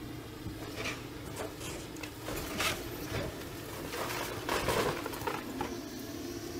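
Excavator's demolition grapple breaking off the top of a masonry wall, with rubble cracking and clattering down in scattered knocks, thickest about four and a half seconds in, over the machine's steady engine hum.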